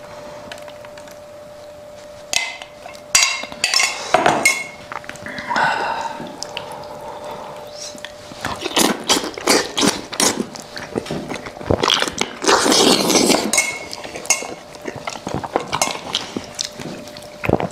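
Close-miked eating: a braised goat head dressed in chili oil being pulled apart by hand and chewed, with irregular wet clicks, tearing and mouth sounds, busiest a little past the middle. A faint steady hum runs underneath.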